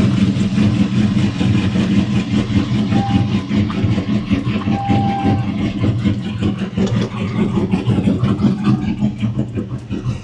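A vehicle engine running steadily.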